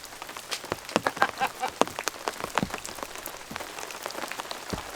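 Rain falling, with many separate drops striking close by as sharp, irregular ticks over a steady hiss.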